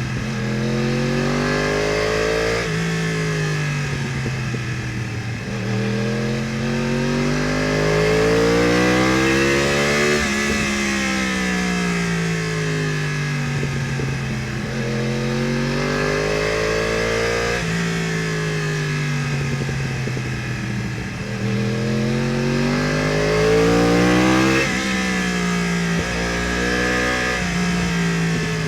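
2015 Yamaha R1's crossplane inline-four, breathing through an Akrapovič exhaust and headers, under way on the road. The revs climb and fall smoothly again and again as the bike accelerates and slows through bends, with the highest revs about ten seconds in and again near the end.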